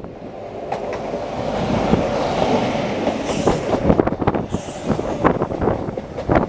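CrossCountry HST passing close at speed: the Class 43 power car's diesel engine swells past in the first few seconds, then the Mark 3 coaches follow with wheels knocking over rail joints and a hiss from the wheels on the curve.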